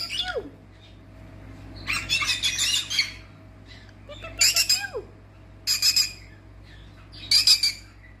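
Pet parrot squawking harshly in loud repeated bursts, about one every second and a half, with a falling whistled note near the start and another about five seconds in.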